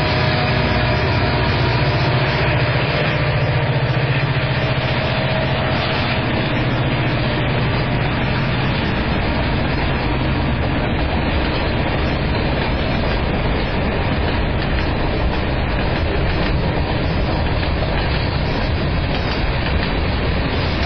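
Freight cars of a passing train rolling by: steady rumble and clatter of steel wheels on the rails. At the start there is the drone of the departing BNSF SD40-2 and geep diesel locomotives, fading away over the first several seconds.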